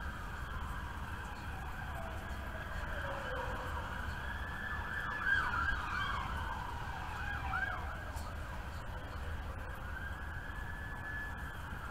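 Emergency vehicle sirens wailing, with more than one siren overlapping. Slow rising and falling sweeps switch to quick yelps around the middle, then return to a slow wail near the end, over a steady low rumble.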